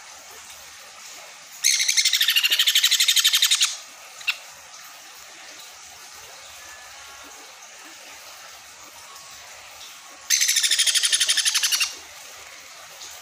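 A baby sun conure giving rapid, pulsing chirps in two bursts, one about two seconds in and a second one near the end, as it begs and takes formula from a feeding syringe.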